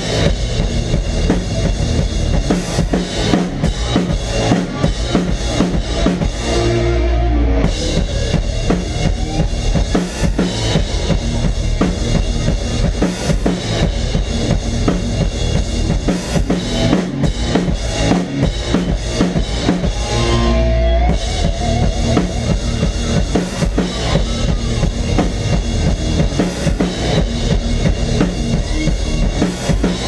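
Pearl drum kit with Zildjian cymbals played hard and fast in a metal song, heard from beside the kit, with constant kick drum, snare and cymbal hits over the band's guitar and bass. About seven seconds in and again about twenty-one seconds in, the cymbals drop out briefly under a held low note.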